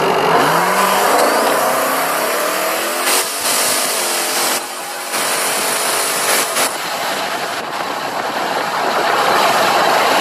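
Turbocharged car's engine at full throttle on a 4.9 psi boost pull, heard from inside the cabin. Its pitch rises steeply through the gears from low speed, with gear changes about three and five seconds in. From about seven seconds on, a steady rush of wind and road noise at high speed takes over.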